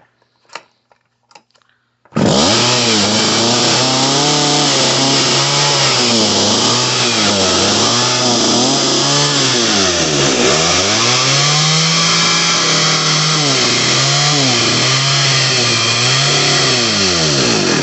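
Vintage Partner R420 two-stroke chainsaw starting about two seconds in and running with its revs rising and falling over and over, dipping low once near the middle, then cutting out at the end. The carburetor can't be set, and the owner suspects a hole in the fuel line.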